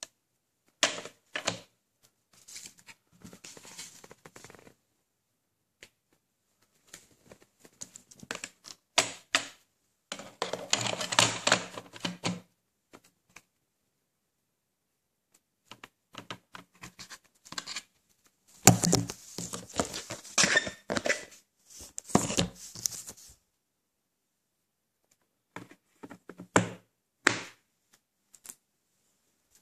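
Handling noise from a plastic VHS cassette and its hinged plastic case: clicks, knocks and scraping in several separate bursts, the loudest knock about 19 seconds in.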